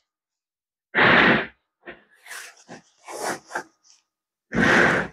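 Two loud, short puffs of breath, about a second in and near the end, from someone straining to pull a tight white vinyl cover over a foam cushion insert. Between them are soft rustles and scrapes of the vinyl being worked over the foam.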